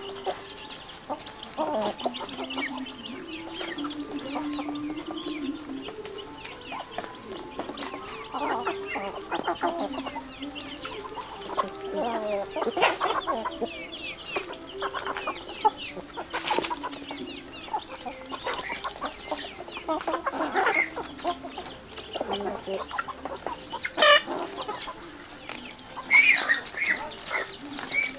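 A flock of chickens clucking and calling as they feed, with low drawn-out notes in the first few seconds and many short clucks, a few of them louder and sharper near the end.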